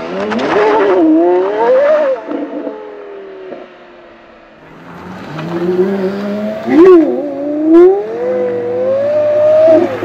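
Porsche Carrera GT's 5.7-litre V10 revving: quick rises and falls in pitch for the first two seconds that then die away, and after a lull the engine climbs again, with two loud, sharp revs about seven and eight seconds in and a long rise in pitch near the end.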